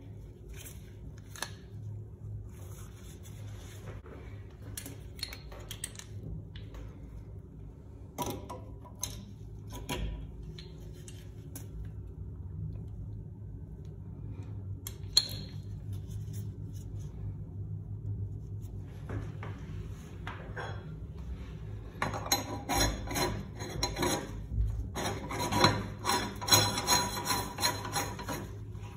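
Parts of a Sloan toilet flush valve being handled and refitted: scattered clicks and light scrapes of plastic and metal, then in the last several seconds a dense run of rasping metal-on-metal rubbing as the chrome outer cover is screwed down onto the valve body. A steady low hum runs underneath.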